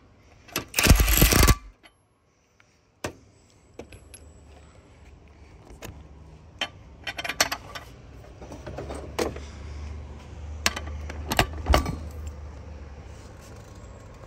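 Cordless half-inch impact wrench (a Tecpo clone of the Hercules) hammering in one loud burst of about a second, on a nut set to 200 foot-pounds in a breakaway torque test. Afterwards come scattered light metallic clicks over a low rumble.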